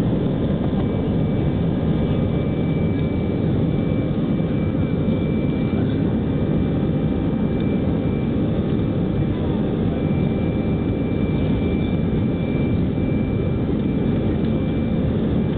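Airbus A319 jet engines at takeoff power heard from inside the passenger cabin during the takeoff roll: a steady low rush of engine and runway noise, with a thin high whine that comes and goes.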